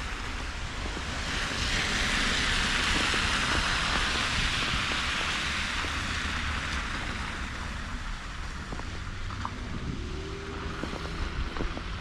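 A car passing on a slushy, snow-covered street: its tyre hiss swells about a second and a half in and fades away by about seven seconds. A low wind rumble on the microphone runs underneath.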